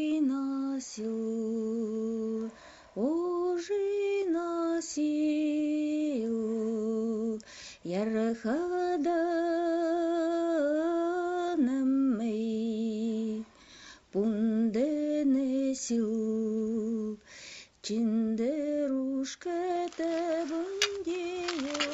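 A woman singing a slow melody alone, long held notes with a wavering vibrato, in phrases broken by short pauses.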